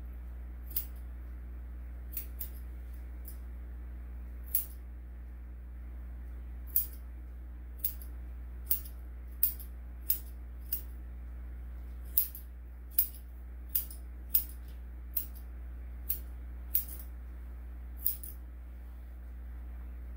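Grooming scissors snipping a dog's coat: short, sharp, crisp snips at irregular intervals, roughly one a second. A steady low hum runs underneath.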